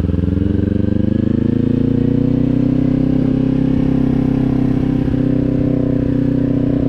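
Kawasaki motorcycle engine under way: the revs climb over the first couple of seconds, then hold steady.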